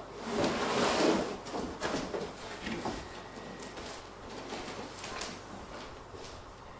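Cardboard box and packaging of a CRT monitor being handled during unboxing: a scraping slide in the first second or so, then scattered rustles and light knocks.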